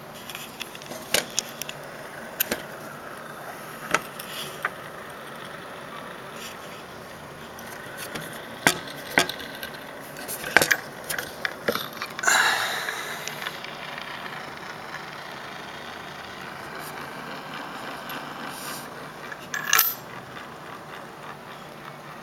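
Irregular light clicks and knocks from a vintage Garrard record player being handled, with a louder clatter and scrape about twelve seconds in.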